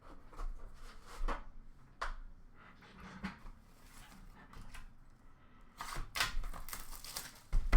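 Trading cards and their packaging handled on a table: scattered soft slides and taps, a stretch of rustling about six seconds in, and a sharp knock near the end.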